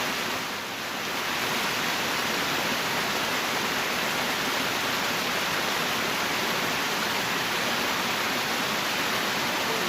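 Steady rush of flowing river water, an even hiss-like noise with no let-up.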